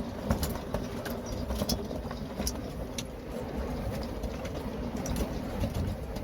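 Wind buffeting the microphone: a steady low rumble with scattered light clicks.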